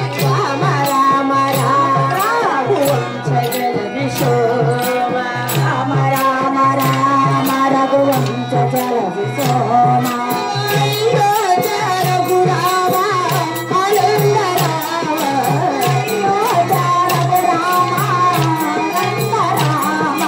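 Indian folk-style song with singing and hand drum, carried on a steady beat of sharp clicks.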